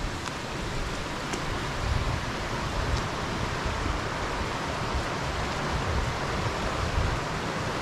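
River running: a steady, even rush of water.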